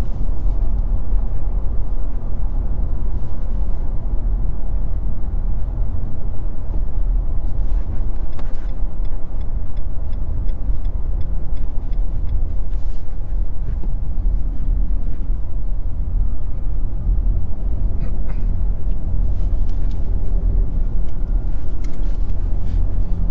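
Cabin noise of a 2022 Nissan Frontier Pro-4X driving at road speed: a steady low rumble of road and engine.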